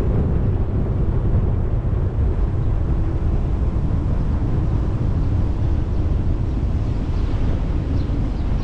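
Wind buffeting the microphone: a loud, steady low rumble that flutters unevenly, with no distinct events.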